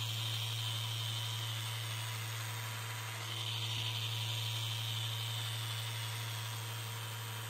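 Festool Rotex 150 random orbital sander running steadily with 120-grit paper on a padded cushion, sanding the curved surface of a Jesmonite terrazzo piece. A steady motor hum under an even sanding hiss.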